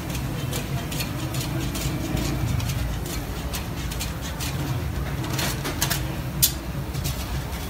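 Street food stall background: a steady low rumble with faint hiss, broken by scattered sharp clicks and clinks at irregular times, one louder than the rest late on.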